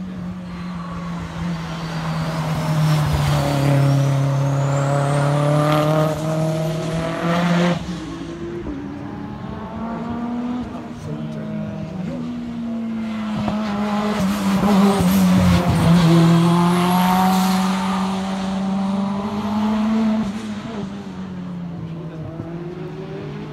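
Hillclimb race car engine revving hard and shifting through the gears, its pitch climbing in steps, dropping back and climbing again. It is loudest twice, about a quarter and about two-thirds of the way through.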